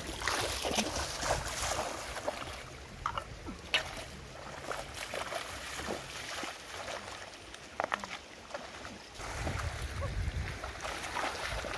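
Shallow river water splashing and sloshing as someone wades through it and dips their hands in, with scattered sharp splashes over the steady flow of the stream. A low rumble comes in near the end.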